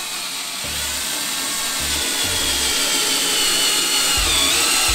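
Electric drill-driver running without a break as it drives a screw into a furniture panel. Its motor whine slowly climbs in pitch and grows louder, then wavers near the end.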